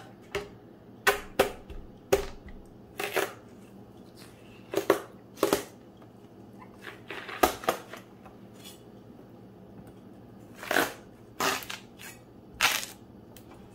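A chef's knife cutting a whole watermelon in half on a plastic cutting board: about a dozen short, crisp cracks and crunches as the blade works through the rind and flesh, spaced unevenly with quiet in between.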